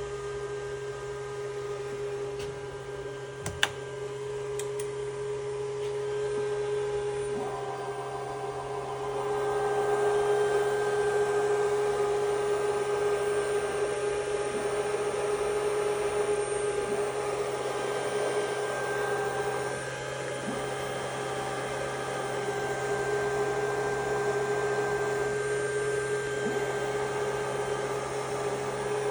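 Mitsubishi servo power supply and servo amplifier running powered up: a steady electrical hum and whine made of several constant tones, growing somewhat louder about nine seconds in. A single sharp click comes about three and a half seconds in.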